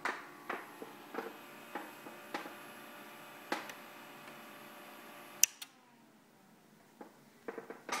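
Flock of Birds motion-tracking electronics giving a steady multi-tone hum while hands handle the units and cables with several light knocks and clicks. About five and a half seconds in, a loud click of the power switch cuts the hum, and a falling tone follows as the unit winds down. A few small clicks come near the end.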